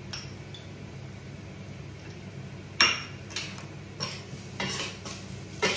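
Metal spoon knocking and scraping against a stainless steel frying pan while stirring onions and spices. There is a sharp clink about three seconds in, then several quicker clinks and scrapes, with another loud knock near the end.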